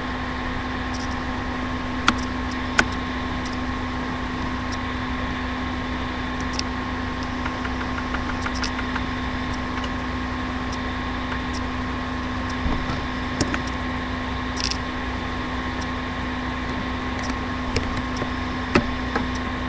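Steady electrical hum and hiss, with a few faint clicks scattered through it: the noise floor of a laptop's built-in microphone picking up the machine's own hum.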